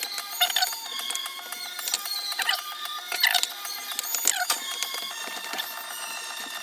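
Glitchy electronic techno track with its bass filtered out, a dense run of mechanical-sounding clicks, ticks and chirping synth tones.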